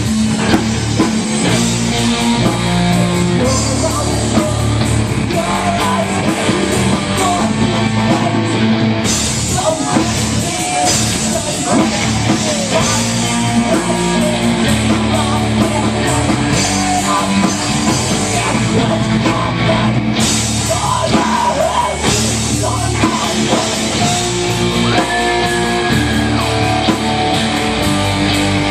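Live rock band playing loudly, guitar and drum kit over a steady bass line, with bending guitar lines above.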